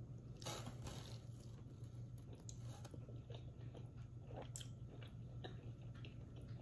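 A person biting into and chewing a sauce-dipped birria taco: a bite about half a second in, then faint wet chewing and crunching clicks. A low steady hum runs underneath.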